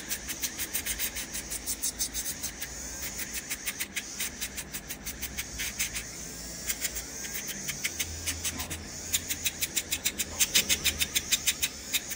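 Podiatry nail drill spinning a sanding disc, touched against the toenails in quick repeated strokes: a rapid series of scratchy rasps, about four a second, thinning out in the middle and loudest near the end.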